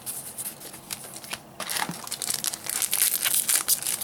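Trading-card booster pack wrappers crinkling and tearing as packs are ripped open by hand. It is sparse at first and grows denser and louder about a second and a half in.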